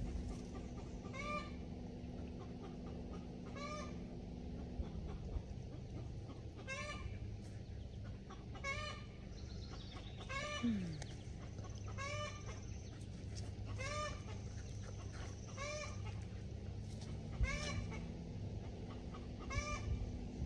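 A chicken calling over and over, one short arched note every couple of seconds, kept up steadily.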